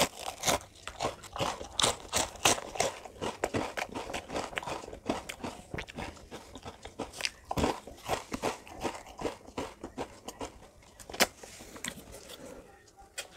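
A person eating ice cream close to the microphone: a dense, irregular run of crunchy bites and wet mouth clicks, with one sharper click about eleven seconds in.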